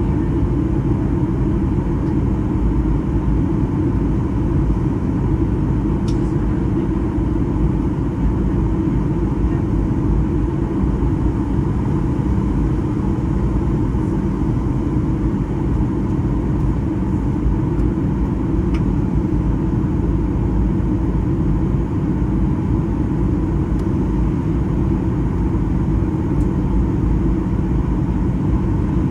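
Steady cabin noise of a Boeing 737-800 in flight: an even, loud low rumble of engines and airflow with a faint steady tone above it, unchanging throughout.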